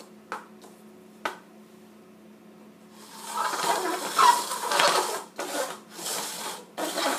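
Two sharp taps of a small cup set down on a hardwood floor, then from about three seconds in a loud, irregular scraping and rubbing as upturned cups are slid and shuffled across the wooden floor.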